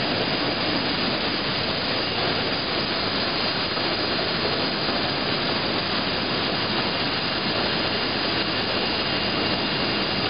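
Steady, even rushing noise of production-line machinery running, with a faint high whine held over it.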